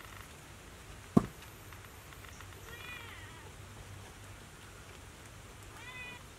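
Silvered langur giving two short, high calls, each rising then falling in pitch, about three seconds apart. A single sharp thump comes about a second in.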